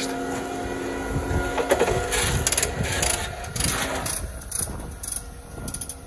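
Putzmeister 38-5 concrete pump truck running with a steady hum that fades about two thirds of the way in, under crunching footsteps on gravel and a few sharp clicks and rattles as the water hose is pulled off its reel.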